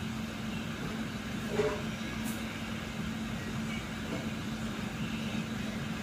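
Mt. Edma Tornado 54-inch ceiling fan running steadily: a constant motor hum over the rush of moving air. A short knock comes about one and a half seconds in.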